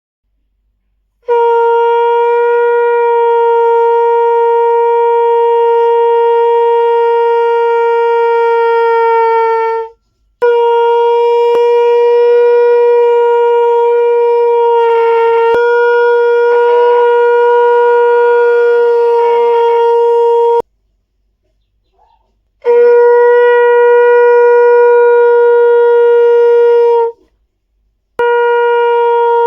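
Conch shell (shankh) blown in four long, loud blasts, each held on one steady pitch for several seconds, with short breaths between them.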